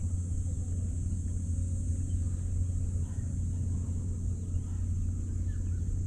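Steady low rumble of wind buffeting the microphone, with a thin steady high-pitched hiss above it.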